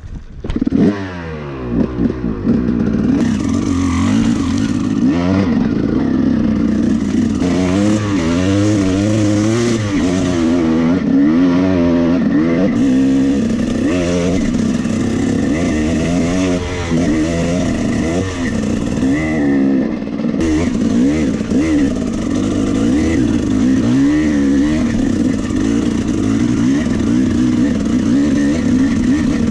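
Dirt bike engine catching at the start and running loudly. It is revved up and down in repeated blips, then held at a steadier rev near the end.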